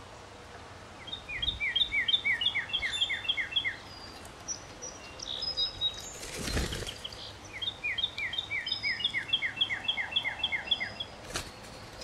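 A bird calling in two runs of about ten quick, sharp, down-slurred notes each, about four a second, several seconds apart. A short whoosh comes between the runs, and a sharp click comes near the end.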